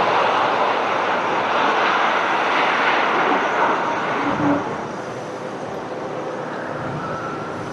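Airplane engines running with a loud, steady rushing noise that drops somewhat about halfway through.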